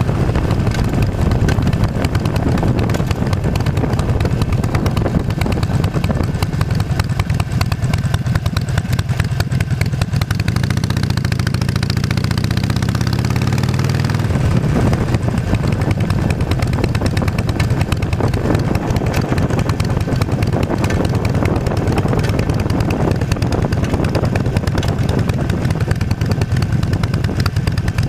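Harley-Davidson Nightster's V-twin engine running steadily on a chain-converted drive, its speed easing off and picking up again about halfway through. The converted drive chain runs slack, which the owner finds slapping against the bike and means to cure with a tensioner or a shorter chain.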